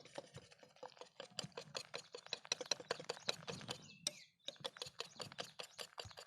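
Flour-and-egg batter being beaten by hand in a bowl: rapid, irregular clicks of the utensil striking the bowl, pausing briefly about four seconds in.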